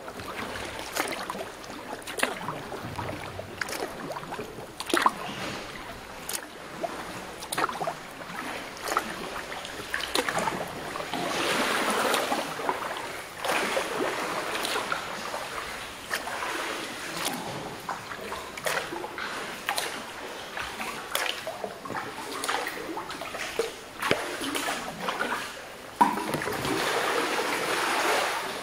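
Canoe paddle strokes in the sea, with sharp splashes about once a second over running, sloshing water. There is a louder splash near the end.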